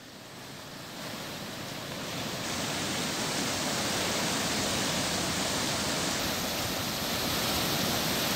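Floodwater of a swollen river rushing and churning past a low concrete causeway bridge: a steady rushing of water that builds over the first couple of seconds, then holds.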